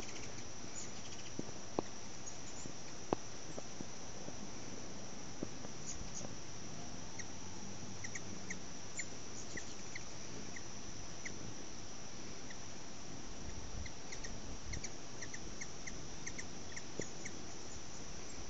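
Steady high-pitched insect chorus, with a run of short repeated chirps starting about seven seconds in and a few soft clicks early on.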